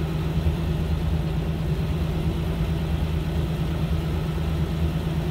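Modified Jeep Wrangler LJ rock crawler's engine idling steadily at low revs.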